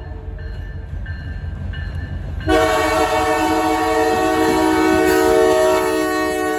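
Locomotive air horn of the Canadian Pacific Holiday Train: after a short lull filled with a low rumble, a long multi-note horn chord starts sharply about two and a half seconds in and holds steadily, over the continuing rumble.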